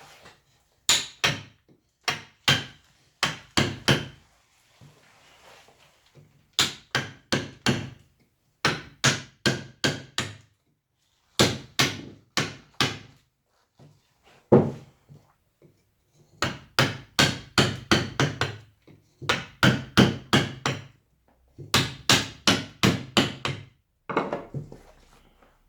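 Mallet striking a carving chisel into wood, in runs of several quick blows with short pauses between them.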